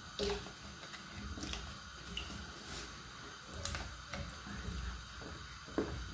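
Pieces of peeled potato dropped by hand into a pot of water: a handful of separate soft plops and splashes spread over several seconds.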